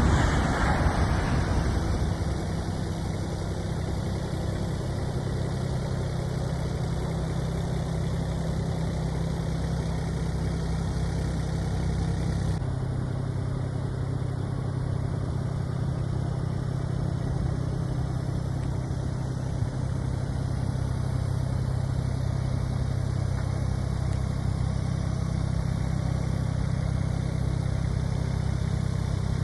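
Kubota U27-4 mini excavator's diesel engine idling steadily. A louder rushing noise in the first couple of seconds dies away.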